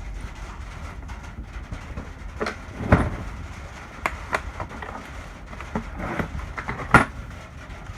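Hand tools clinking and clanking, a scatter of sharp metallic knocks with two louder clanks, one about three seconds in and one near the end, as sockets and a ratchet are picked out and handled.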